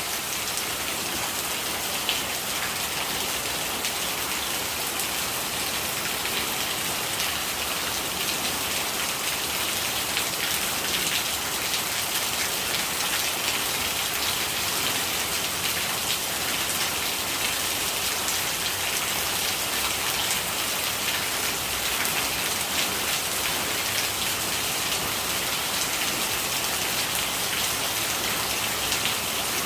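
Steady rain falling, a constant hiss with a dense patter of drops and no change in strength.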